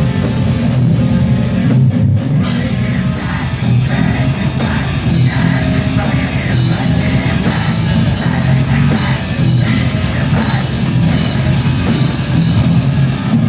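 Black metal band playing live and loud: distorted electric guitars over a drum kit, with rapid cymbal hits.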